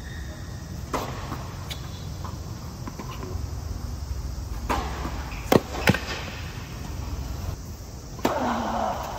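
Tennis rally: sharp pops of rackets striking the ball and the ball bouncing, spaced about a second apart, the loudest two about five and a half and six seconds in, over a steady low rumble.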